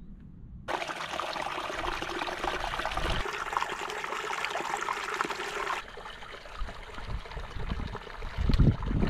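A small moorland stream trickling over stones, starting abruptly about a second in and cutting off about six seconds in. After that, a low rumble of wind buffeting the microphone, loudest near the end.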